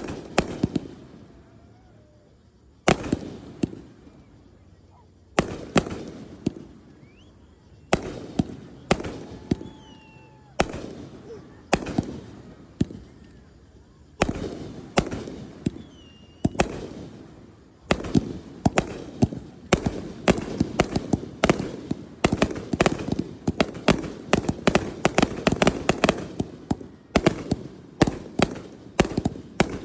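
Aerial fireworks going off: single sharp booms every two to three seconds, each dying away. About halfway through they turn into a dense run of rapid bangs and crackling.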